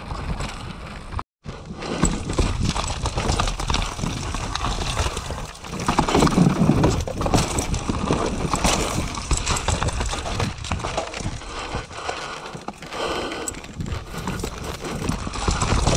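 Wind rushing over the microphone with constant rattling and knocking from riding fast down rough ground. The audio cuts out briefly about a second in.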